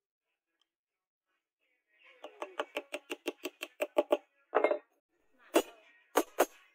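A small cylindrical steel hammer tapping brass pins into the holes of a wooden knife-handle scale. Starting about two seconds in, there is a quick run of light taps, about six a second for two seconds, then a few single, louder knocks.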